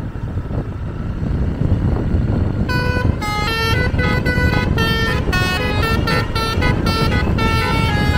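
Bus's telolet (basuri) multi-tone air horn playing a quick melody, starting about two and a half seconds in, over the low rumble of road and engine noise.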